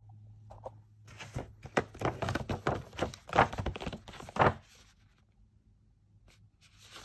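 Paper shopping bag and cardboard packaging being handled: a busy run of rustling and crinkling with several sharp knocks, stopping about four and a half seconds in.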